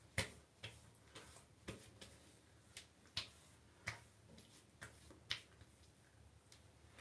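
Hands patting and rubbing a milky post-shave balm into the skin of the face and neck: irregular soft slaps and clicks, about a dozen, a few of them sharper.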